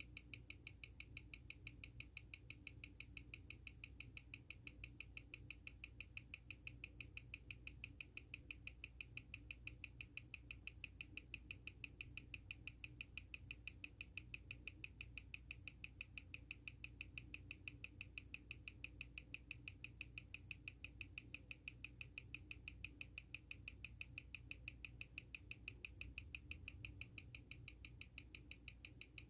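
Seiko SARB035's automatic movement ticking, fast and perfectly even at about six ticks a second, its 21,600-beats-an-hour beat. The ticks are being measured on a timegrapher, which reads the watch as running between 0 and −5 seconds a day at about 224° amplitude.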